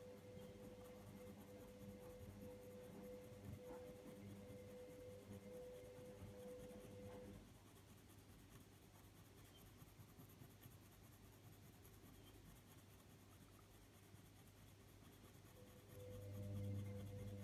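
Faint scratching of a Faber-Castell Polychromos coloured pencil tip rubbing blending powder into paper, over a steady low hum that stops about seven seconds in and comes back near the end.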